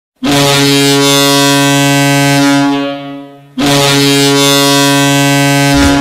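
Ice hockey arena goal horn sounding two long, steady blasts, the first fading out about three seconds in and the second cut off just before the end as the goal song begins.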